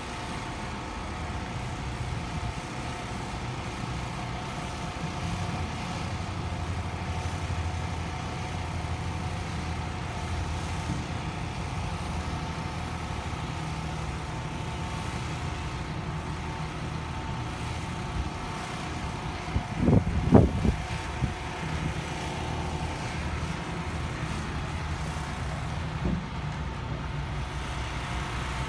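Crane engine running steadily while it holds and lowers a load, a low drone with a steady higher whine over it. A few loud knocks come close together about two-thirds of the way through.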